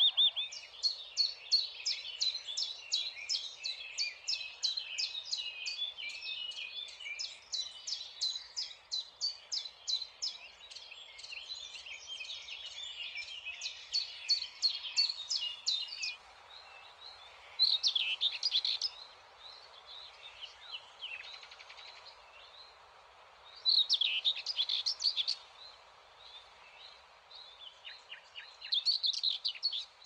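A myna bathing in a shallow metal bowl of water, splashing in short wing-fluttering bouts of about a second each, three times in the second half. Birds chirp quickly and continuously through the first half and more sparsely after.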